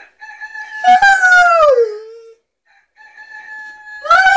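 Rooster-crow alarm clock sounding its recorded cock-a-doodle-doo twice, about three seconds apart, each call ending in a long falling note, with a rottweiler howling along.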